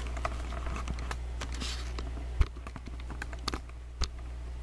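Handling noise of a camera being turned around and repositioned: scattered light clicks and rubbing, with a sharp knock about two and a half seconds in and another about four seconds in, over a steady low hum.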